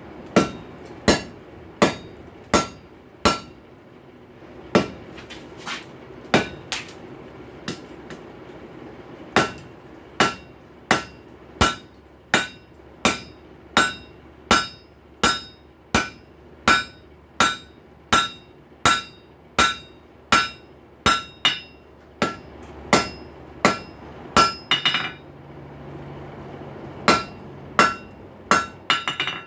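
Hammer blows on a hot rail spike on an anvil, laying the spike's head out flat. The blows come steadily at a little over one a second, each with a ringing metallic tone, with a flurry of lighter quick taps near the end.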